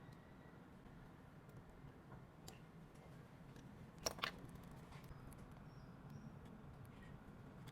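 Near silence with a low steady hum, broken by a few faint clicks of small repair tools against a phone and one sharper double click about four seconds in.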